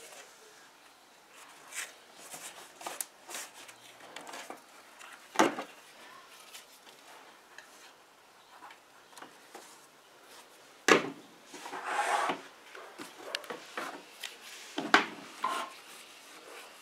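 Handling sounds from upholstery work: leather being rubbed and smoothed, with scattered clicks and a few sharp clacks as plastic spring clamps are handled and clamped onto the panel's edge. The loudest knocks come about five, eleven and fifteen seconds in, with a stretch of rustling just after the second.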